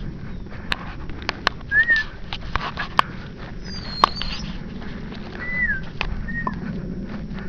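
Footsteps crunching through dry brush, with irregular snaps and clicks over a low rumble. A few short chirping calls come through: three brief arching chirps and one higher gliding one just before the middle.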